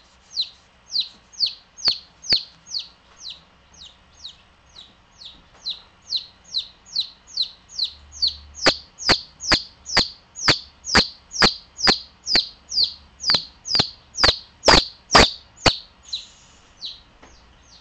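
Baby chick peeping: a steady run of short, high, falling peeps, about two a second. The peeps grow louder about halfway through and stop shortly before the end.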